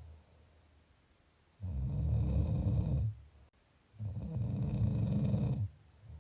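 Snoring: two long, low snores, each lasting about a second and a half, the first starting about a second and a half in and the second about four seconds in.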